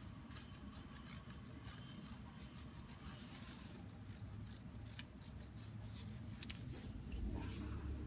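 Stiff brush scrubbing a motorcycle drive chain: quick, irregular scraping strokes, several a second, easing off in the last second or so.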